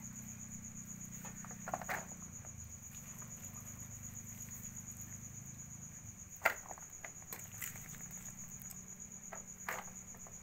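Crickets chirping in a steady, fast high trill over a low steady hum, with a few sharp clinks of a metal spoon against a wok as rice is scooped out.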